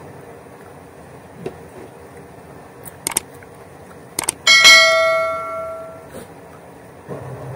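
Tableware struck once with a sharp, ringing clink that dies away over about a second and a half, after a few light clicks.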